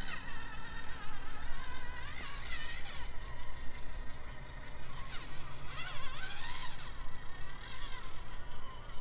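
Prototype Little Guy Racing Parts brushless motor in an SCX24 micro RC crawler, its whine rising and falling in pitch with the throttle as the truck crawls over rocks, with a steady high tone underneath.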